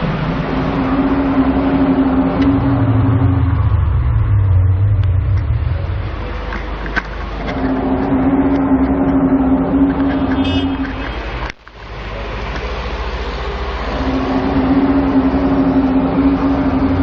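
A loud, unexplained drawn-out droning hum, of the kind passed around as 'strange sounds in the sky': three long steady tones of about three seconds each, the first over a deep low rumble, above a constant noisy background. The sound breaks off abruptly for a moment about two-thirds of the way through.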